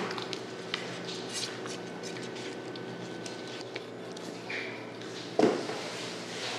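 Large kitchen knife cutting through raw shark meat on a wooden cutting board: scattered soft clicks and one heavier knock about five and a half seconds in, over a steady background hum.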